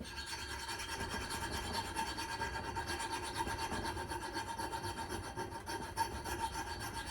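A hand file rasping back and forth across the steel of an old axe head, filing off rust in quick, even strokes, with a faint steady ringing note from the metal.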